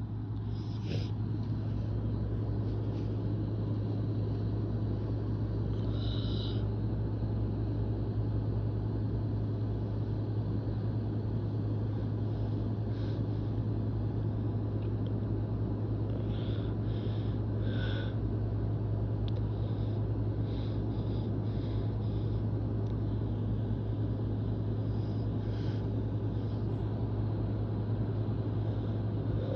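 A steady low machine hum with an even rumble beneath it, rising in level at the start and then holding constant, with a few faint, short high-pitched sounds now and then.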